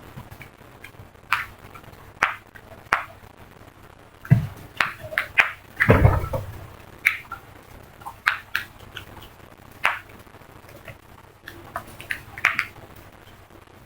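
A flock of crows calling in short, sharp caws, many of them at irregular intervals. There is a low thud about four seconds in and a heavier one about six seconds in.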